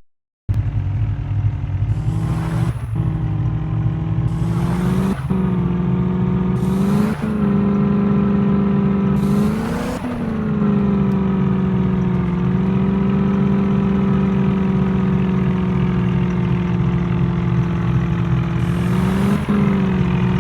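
Tractor engine running steadily. Its pitch dips under load and recovers about five times, each dip coming with a short burst of hiss.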